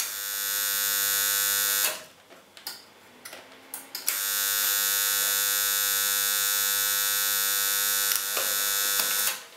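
Microwave-oven transformer buzzing loudly under load as it drives current through a galvanized wire electrode, heating it red-hot to melt solder: one burst of about two seconds, then after a short pause a longer burst of about five seconds.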